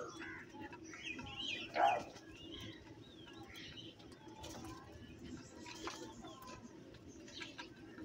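A flock of house crows calling while feeding. One loud, harsh caw comes about two seconds in, with softer chirps and short calls around it, and the calls thin out to scattered quiet notes in the second half.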